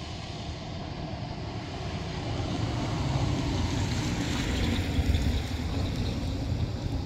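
A fast motor watercraft passing by on the water, its engine and wake growing louder to a peak midway and then easing off, with wind on the microphone.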